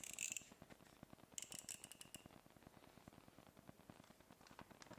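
Knife being handled and readied for cutting: a faint metallic click at the start, then a short run of clicks with a brief ringing scrape about a second and a half in.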